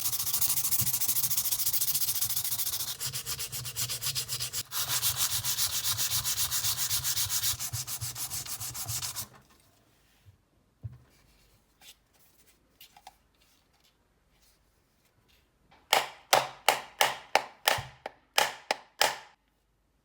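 Hand sanding or rubbing: continuous rapid back-and-forth strokes for about nine seconds, then after a pause with a few light clicks, a burst of about a dozen separate quick strokes near the end.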